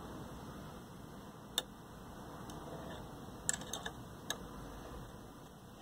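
A few light clicks and taps against low room noise, one about a second and a half in and a small cluster a couple of seconds later: a small speaker and its mounting bracket being handled and fitted back into a plastic TV cabinet.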